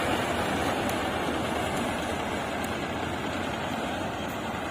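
Farm tractor's diesel engine running steadily under power, its sound easing off slowly.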